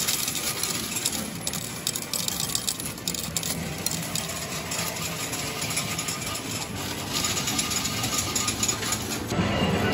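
Metal medals clinking and clattering in a coin-pusher medal game, a continuous patter of small clicks over the machine's mechanical rattle.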